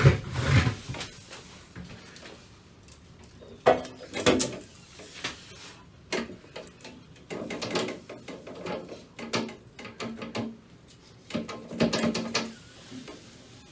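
Irregular knocks, scrapes and creaks of a toilet being shifted and pressed down on a toilevator riser during a dry fit. There is a sharp knock at the start, two more about four seconds in, then clusters of scraping and creaking.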